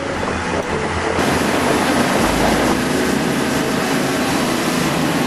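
Fishing boat running at speed: steady engine noise mixed with wind and rushing water from the wake.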